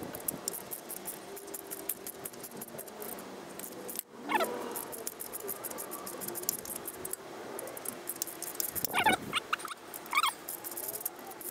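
Small metal clicks and clinks of a socket, extension and hand tools working a loosened exhaust-manifold stud out, with a few short high squeaks about four seconds in and again near the end.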